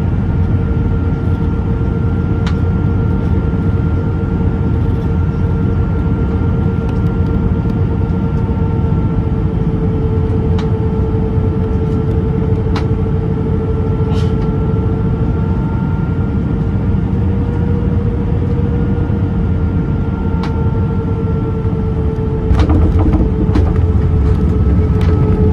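Airbus A319 cabin noise on final approach: a steady rush of air and engine hum with a few even engine tones. About three seconds before the end the main wheels touch down with a couple of knocks, and the rumble grows louder as the aircraft rolls on the runway.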